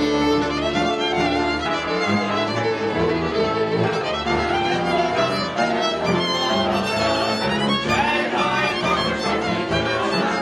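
Hungarian folk string band playing, a fiddle carrying the melody over lower string accompaniment with a steady rhythmic pulse in the bass.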